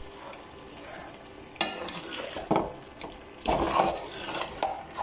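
Metal spoon scraping and knocking against a metal pot as chicken pieces are stirred into a thick, creamy gravy, with four louder scrapes, the longest about three and a half seconds in. Between the strokes the gravy is frying over the flame.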